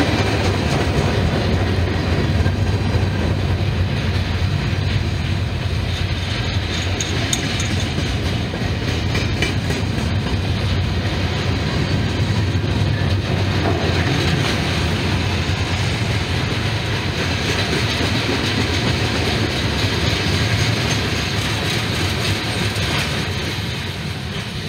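Freight cars (centerbeam lumber flatcars, then tank cars) rolling past: a steady rumble of steel wheels on rail with occasional clicks over rail joints. It eases off near the end as the train draws away.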